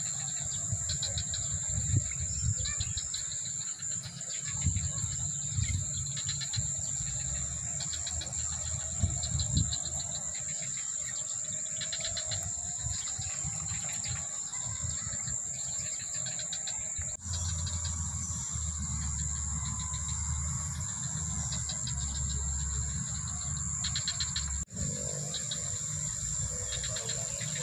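Insects singing: a steady high-pitched drone with recurring bursts of rapid pulsing chirps, over an uneven low rumble. The sound breaks off abruptly twice, about two-thirds of the way in and again near the end.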